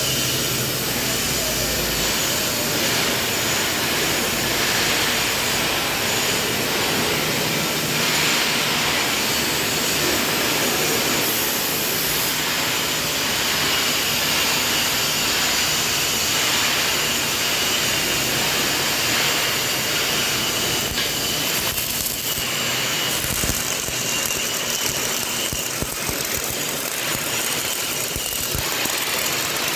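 CO2-shielded MIG welding arc running with a steady, dense crackling buzz.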